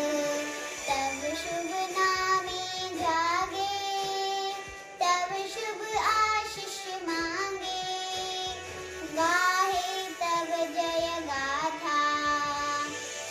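A children's song: a child's voice singing a melody over backing music.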